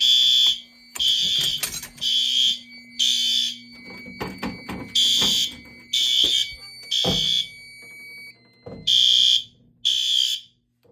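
Fire alarm horn strobe on System Sensor sync sounding the temporal Code 3 evacuation pattern: three shrill half-second blasts, a pause, then three more, repeating. The horn cuts off near the end, with a low steady hum and a few clicks beneath it.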